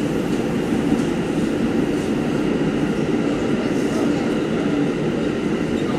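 New York City Subway 7 train car running at speed through a tunnel, heard from inside the car: a steady, even noise of wheels on rail, with no squeals or knocks standing out.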